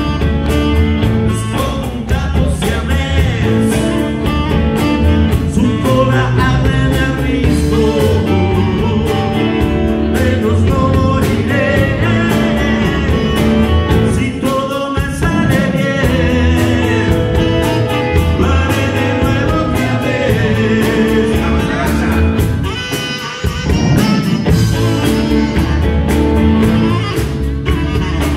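A live rock and roll band playing, with a man singing lead over electric guitar, bass, drums and keyboard, and saxophone and violin on stage. The music dips briefly about twenty-three seconds in, then comes back in full.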